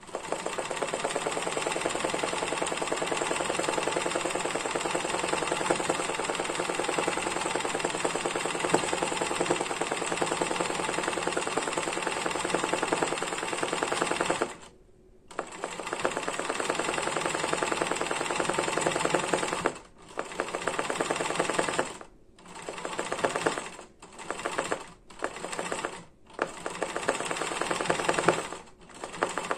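Janome 813 sewing machine running fast, stitching zigzag embroidery with a quick, even stitch rhythm. It runs without a break for about fifteen seconds, stops for a moment, then runs again, and in the second half goes in short runs with brief pauses between them.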